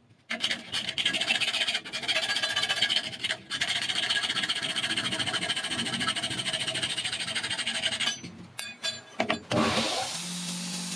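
Junior hacksaw cutting through a brass tube set in a wooden knife handle, with a continuous back-and-forth rasping that stops about eight seconds in. Near the end a belt grinder starts and runs with a steady hum and hiss.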